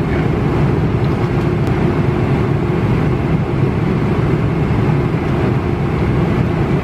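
Airliner cabin noise in flight: a steady, even low rumble and rush of engines and airflow.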